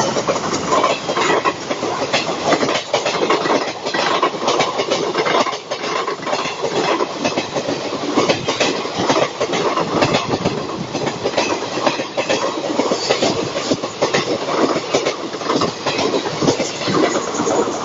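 Passenger train's coaches rolling past at speed, the wheels clattering over the rail joints in a continuous rapid clickety-clack.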